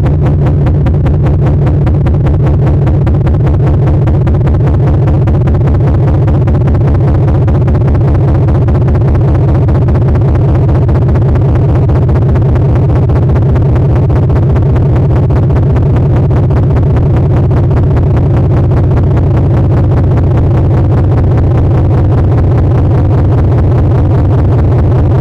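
Computer-generated sonification of Super-Kamiokande solar neutrino energy-spectrum data: a loud, steady, low drone with a fast, even pulsing running through it.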